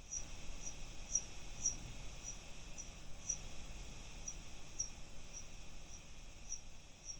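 Bat echolocation calls, recorded ultrasonically and pitched down three octaves into the audible range, played back as a steady train of short high chirps about two a second over faint hiss.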